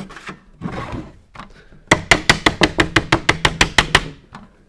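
Ball peen hammer's round end tapping a thin metal sheet on a wooden block: a fast, even run of about sixteen sharp metallic taps, about eight a second, starting about two seconds in, after some softer handling sounds. This is peening, shaping the metal by tapping.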